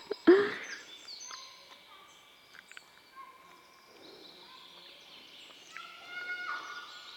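Small birds singing in woodland, many short whistled notes at different pitches overlapping. A brief loud burst of a person's voice comes right at the start.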